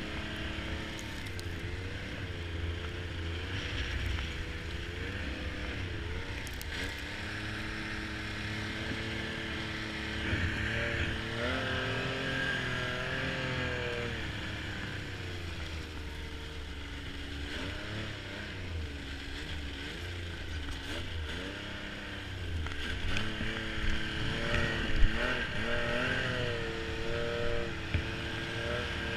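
Snowmobile engine running, its pitch rising and falling again and again as the throttle is opened and eased off, with one sharp knock near the end.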